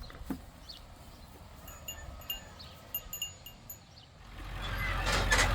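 Light metallic chimes tinkling, a few short high rings at a time. About four seconds in, a tractor engine starts to be heard running and grows steadily louder.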